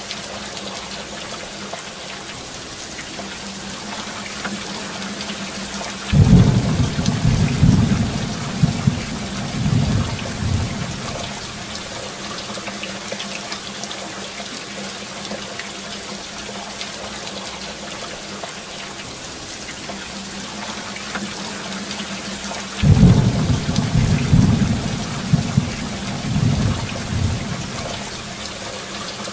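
Rain falling steadily, with two rolls of thunder: one about six seconds in and another about twenty-three seconds in, each rumbling for around five seconds.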